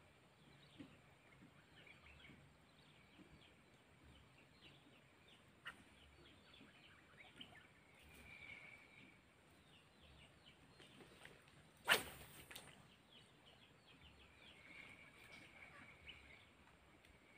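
Faint outdoor ambience with scattered chirping, and one sharp swish about twelve seconds in as a fishing rod is cast.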